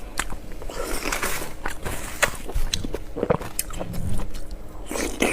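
Close-miked eating: chewing and biting a mouthful of pork belly and rice, with short wet clicks throughout.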